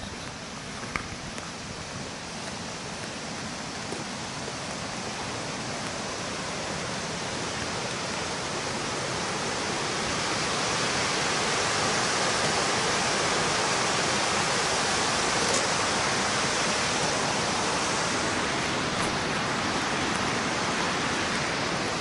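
Sogi Falls, a broad waterfall in heavy flow with a great volume of water, rushing steadily. The rush grows louder over the first ten seconds or so and then holds.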